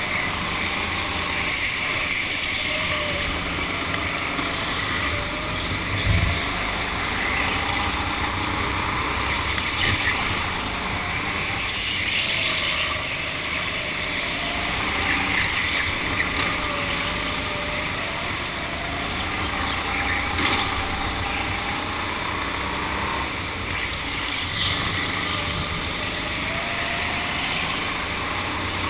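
Go-kart motor running at speed, its pitch slowly rising and falling through the laps, over a steady rushing noise. One sharp thump comes about six seconds in.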